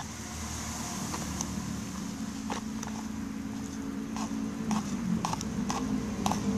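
Slime mixture of glue, dish soap and detergent being stirred, with scattered light clicks of the stirrer against the container, over a steady low hum that grows a little louder toward the end.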